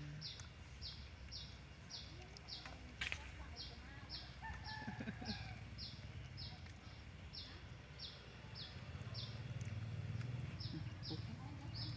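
Outdoor ambience: a short, high chirp repeats steadily about one and a half times a second over a low hum, with a single sharp click about three seconds in and a few faint calls.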